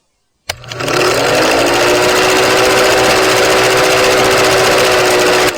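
A motor or engine sound effect: a click, then a running motor whose pitch rises briefly and holds steady, cut off abruptly near the end.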